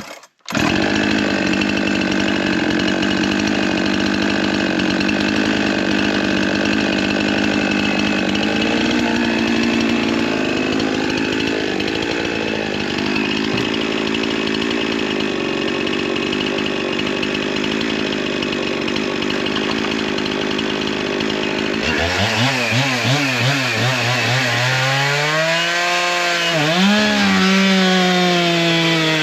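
A large two-stroke chainsaw running flat out at high revs. About three quarters of the way through, its note drops and wavers up and down as the engine comes under load, typical of the bar cutting into wood.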